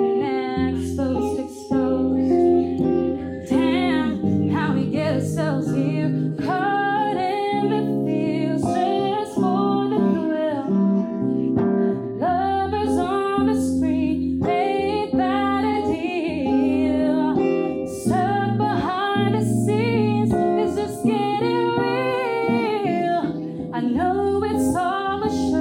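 A woman singing live with guitar accompaniment.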